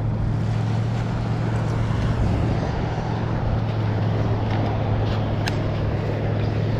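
Steady low engine hum with an even pitch, over outdoor background noise, with a light click near the end.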